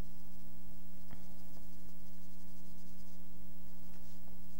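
Oil pastel stick scratching and tapping on paper as green is laid into a drawing: a sharp tick about a second in and a few fainter ones later. A steady electrical hum runs underneath.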